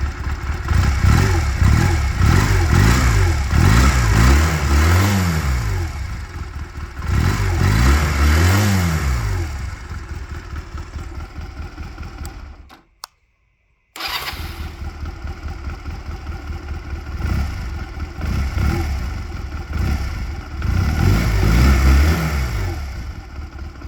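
1997 Honda Rebel CA125's 124 cc parallel-twin four-stroke engine on its original stock exhaust, revved up and down repeatedly so the pitch keeps rising and falling. A little past halfway the sound cuts out completely for about a second, then the engine is running again and is revved a few more times.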